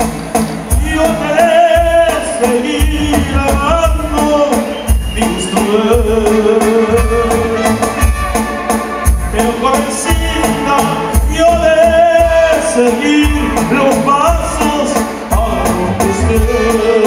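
Live band playing Mexican ranchero music through a PA, with a heavy pulsing bass beat, steady percussion and a bending melodic lead line.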